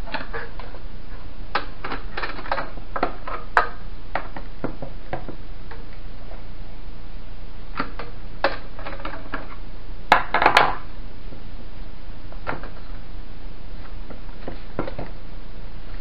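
Scattered clicks, taps and light knocks of a screwdriver and plastic and metal fan parts being handled while an old electric fan is worked on. The loudest cluster of knocks comes about ten seconds in, over a steady low hum.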